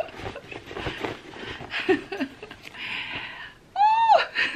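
Fabric rustling as a boucle canvas tote is pulled out of a black textile dust bag, with a few soft laughs. About four seconds in comes a woman's loud, high excited squeal that rises and falls.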